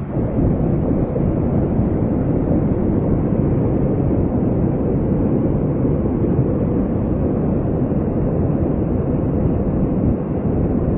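Rushing floodwater: a loud, steady, low rush of noise.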